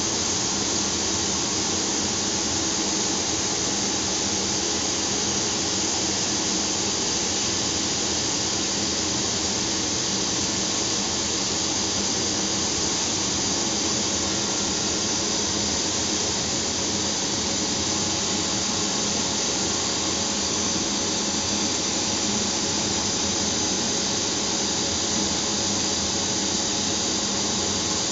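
Automatic belt-sanding machine running, its abrasive belt grinding against a large 900 mm metal pot: a steady hiss of belt on metal over the steady hum of the machine's motors.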